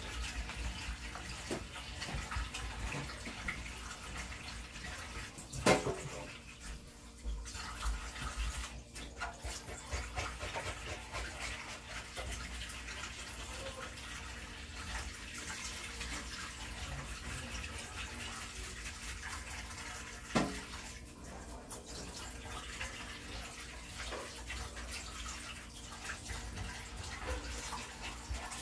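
Kitchen tap running into a metal sink while a fish is washed by hand, the water splashing unevenly. Two sharp knocks, about six seconds in and again about twenty seconds in.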